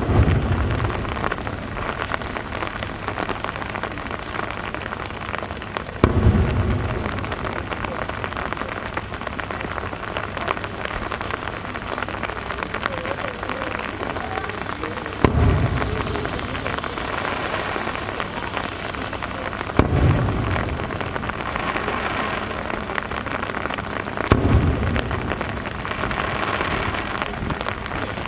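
Aerial firework shells bursting: five deep booms, each with a rolling rumble, spaced several seconds apart. Steady rain hisses throughout.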